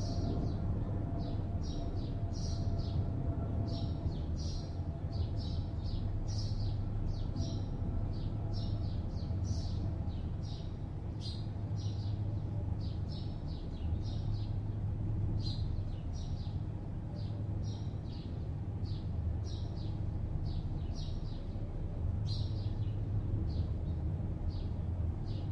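Small birds chirping over and over in short high notes, about two a second, over a steady low hum of distant city traffic.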